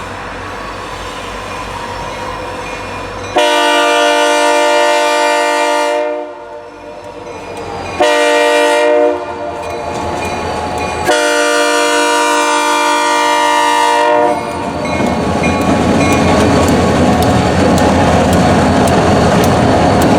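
Diesel freight locomotive's air horn sounding for a grade crossing: a long blast, a short one, then another long one, each a chord of several notes. From about fourteen seconds in, the rumble of the locomotives and rail cars passing rises and holds.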